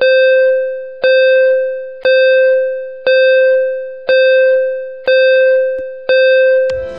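Countdown-timer sound effect: a pitched electronic ding, struck once a second and fading out before the next, seven times. Music begins at the very end.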